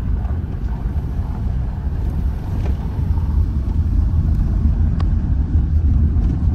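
Car driving slowly, heard from inside the cabin: a steady low rumble of road and engine noise. A faint click about five seconds in.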